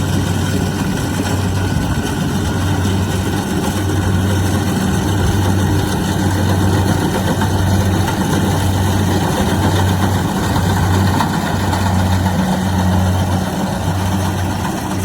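Kubota DC-70 Plus rice combine harvester running steadily, its engine giving a loud low hum that swells and fades slightly every second or so under a wide mechanical whirr.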